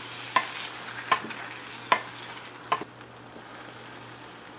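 Wooden spatula stirring thick egg curry gravy in a stainless-steel pan, knocking against the pan four times over a soft sizzle; the stirring stops about three seconds in.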